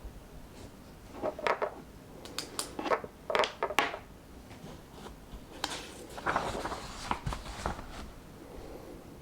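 Paper pages of a book being turned and handled: crisp rustles and flicks in two bouts, the first about a second in and the second just past halfway.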